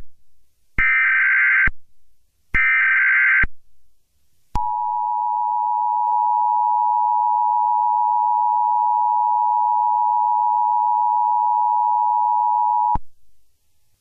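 Emergency Alert System tones: two roughly one-second bursts of screechy digital SAME header data, then about four seconds in the EAS attention signal, a steady two-tone alarm (853 and 960 Hz) held for about eight seconds before it cuts off abruptly.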